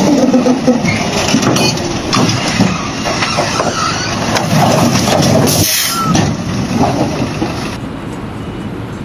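Loud running noise of heavy machinery, with scattered knocks and clatter.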